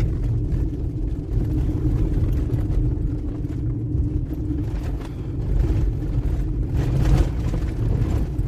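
Vehicle driving along: a steady low engine and road rumble with a constant drone.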